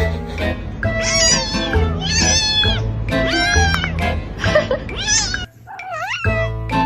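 A cat meowing repeatedly in long drawn-out meows, about one a second, over background music. The music drops out briefly near the end while one last meow sounds on its own.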